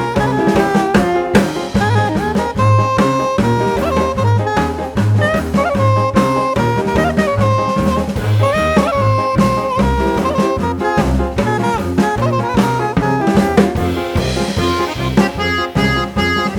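Background jazz music: a saxophone melody over walking bass and drum kit.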